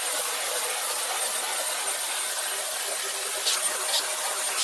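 Dyson V10 cordless vacuum cleaner running at maximum suction: a steady rushing hiss with a thin high whine, and two brief scrapes about three and a half seconds in.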